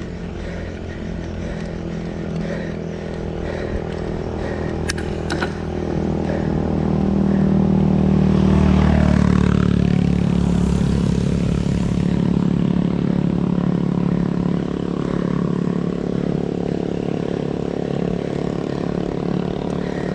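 A motor vehicle engine running steadily; it swells louder about halfway through and holds there. A couple of sharp clicks about a quarter of the way in.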